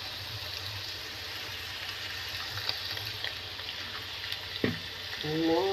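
Pork and green beans frying in a pan: a steady sizzle with a few light clicks and a sharper knock about four and a half seconds in.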